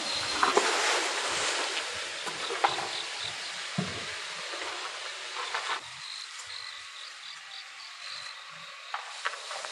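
Fired pots and kiln bricks being handled: rustling, with a few light knocks and clinks. Insects chirp in the background in a thin, repeating high trill.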